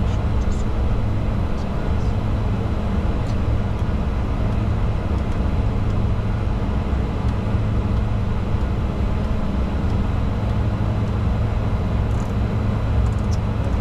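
Steady cockpit noise of a Bombardier Challenger 605 business jet in flight: a constant drone of airflow and its twin rear-mounted GE CF34 turbofans, with a steady low hum.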